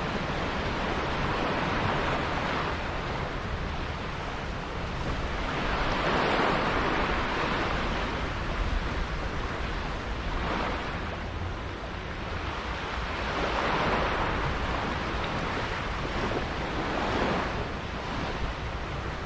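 Water washing and rushing in waves, with wind buffeting the microphone. The sound swells and eases every few seconds.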